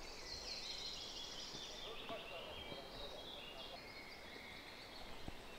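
Several small songbirds singing in a leafy woodland: overlapping chirps, trills and short falling notes, busiest in the first few seconds and thinning out after that.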